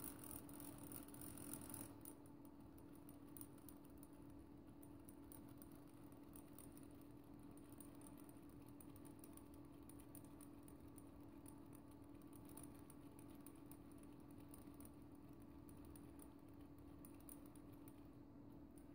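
Faint, rapid clicking and rattling of Lego Technic gears and the ratchets in its differential freewheels as the input crank is turned by hand, over a steady low hum.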